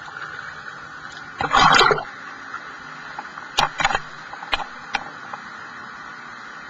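Water splashing around a scuba diver entering the sea, with one loud splash about a second and a half in, then a few short sharp knocks over a steady hiss.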